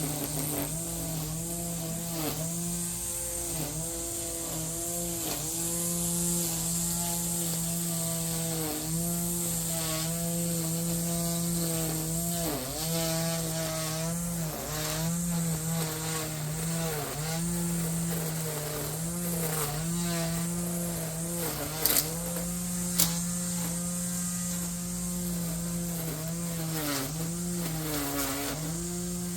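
Yardworks lawn edger's motor running, its pitch dipping again and again as it bites into the turf along the edge. Two sharp ticks come about a second apart late on.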